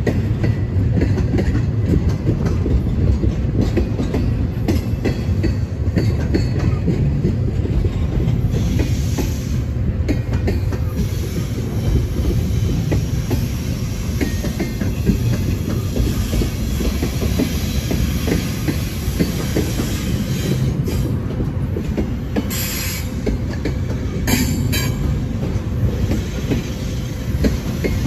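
Norfolk Southern freight train's cars rolling past: a steady rumble of steel wheels on rail, clacking over the rail joints. A few sharper rattles come near the end.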